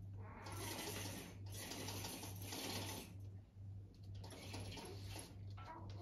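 A fabric roman blind being pulled up by its cord mechanism: a rhythmic mechanical whirring with a low hum pulsing two or three times a second, and rustling as the fabric gathers.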